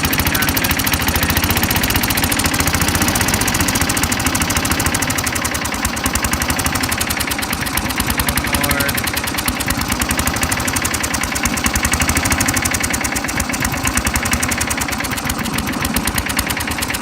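Small lawn mower engine running on a water, oil and gasoline mix through a Geet reactor instead of a carburetor, idling steadily with rapid, even firing pulses as it is turned down to a low idle. It gets slightly quieter near the end.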